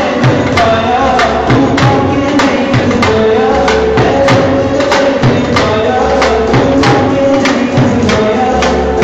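Dhol drum beaten in a quick, even rhythm, with music and a wavering melody line over it for dancing.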